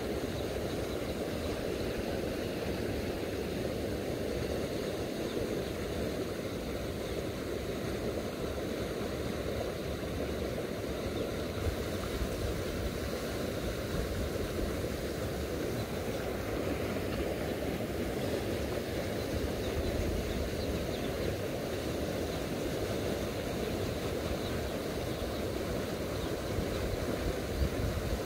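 Steady rushing of a shallow river's current flowing past, an even wash of water noise with no breaks.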